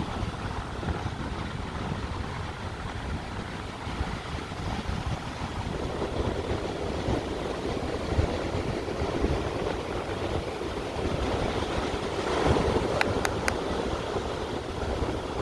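Wind buffeting the microphone with the rush of sea surf beneath, a few short clicks near the end.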